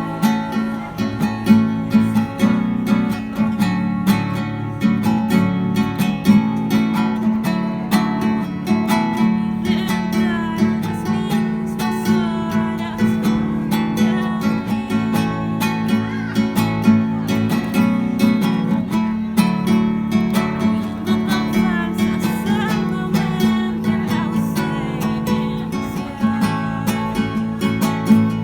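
Music: an acoustic guitar strummed steadily.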